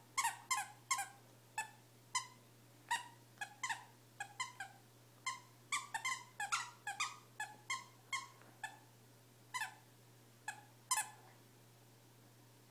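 Squeaker in a plush Santa dog toy squeaking over and over in short, uneven bursts as a black Labrador bites down on it, each squeak dipping slightly in pitch. The squeaking stops near the end.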